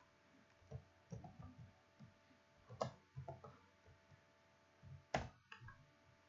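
Faint computer keyboard typing: a few scattered keystrokes, the sharpest about three seconds in and again about five seconds in.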